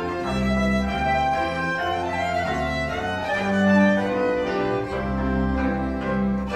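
Violin and bowed double bass playing a Transylvanian folk tune from Sălaj: the fiddle carries the melody over long, sustained low bass notes that change about once a second.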